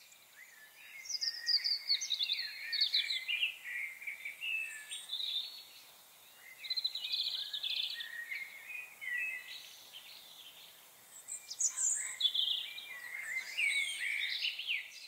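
Eurasian blackbirds singing: fluty, warbling song phrases with twittering high notes, coming in three main bouts separated by short pauses.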